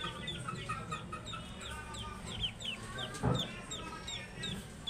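Ducklings peeping: many short, high, downward-sliding peeps, several a second, overlapping from more than one bird. A brief louder thump comes a little past three seconds in.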